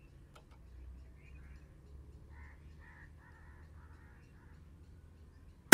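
Faint bird calls, a run of short repeated calls, in a quiet outdoor background. At the very end comes a single sharp crack as the P15 air rifle fires a slug.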